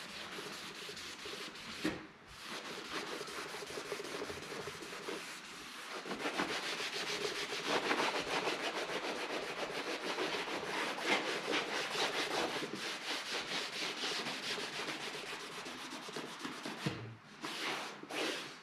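Cloth rubbing briskly back and forth over a wood-grain laminated furniture panel, wiping it clean with a cleaning liquid. There is a short pause about two seconds in, then quick strokes run on steadily.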